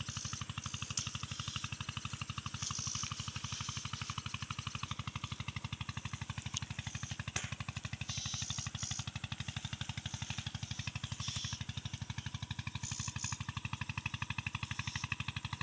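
A small engine running steadily with a fast, even putter.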